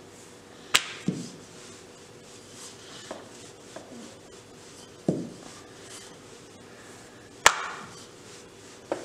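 Wooden rolling pin rolling out dough on a granite countertop, with a series of sharp wooden knocks as the pin strikes the stone at uneven intervals. The loudest knocks come about a second in and near the end.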